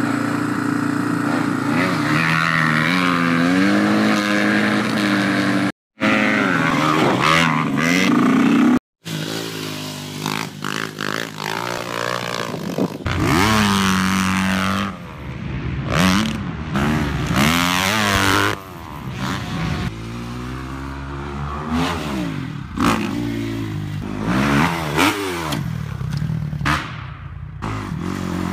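Dirt bike engines revving up and down as they are ridden, the pitch rising and falling with the throttle. The sound cuts off abruptly twice in the first nine seconds where separate clips are joined.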